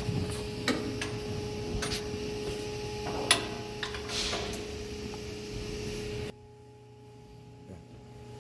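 Scattered metal clicks and knocks of a socket wrench and fittings being handled at a marine diesel engine's chain casing, over a steady machinery hum with a fixed tone. About six seconds in, the hum cuts off abruptly and only faint room sound is left.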